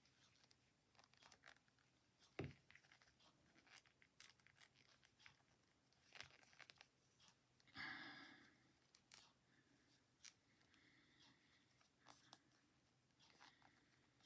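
Faint, scattered clicks and rustles of knitting needles and yarn while stitches are knitted together, with one sharper tap about two and a half seconds in and a brief rustle near eight seconds.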